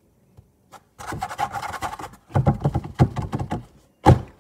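Rapid knocking and rattling of a paint bottle handled at a tabletop for a couple of seconds, then one loud knock against the table near the end.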